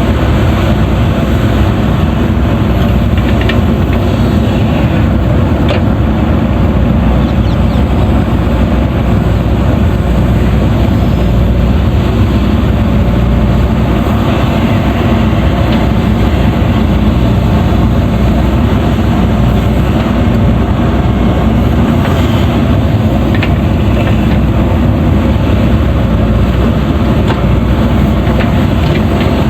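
JCB 3DX backhoe loader's diesel engine running steadily while it digs, with a few faint knocks.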